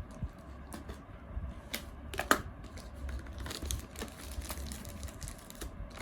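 Scattered light clicks and taps of a boxed product being handled, with one louder knock about two and a half seconds in.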